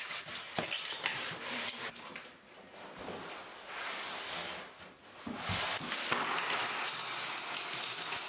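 Flat-pack furniture being unpacked by hand: cardboard packaging rubbing and scraping, with a few knocks of particleboard panels. From about six seconds in, a plastic bag of metal fittings rustles and clinks.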